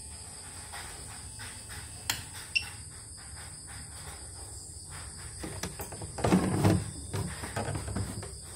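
Portable embroidery machine under test: a couple of sharp clicks about two seconds in, then its motor labouring briefly around six to seven seconds in without turning properly. The technician puts this down to a worn, wobbling motor.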